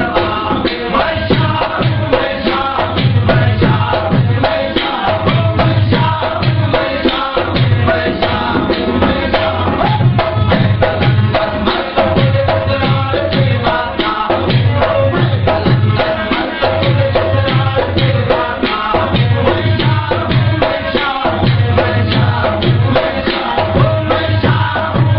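Sindhi Sufi folk music: long-necked lutes (tamburos) plucked in a steady repeating rhythm, with a man singing over them.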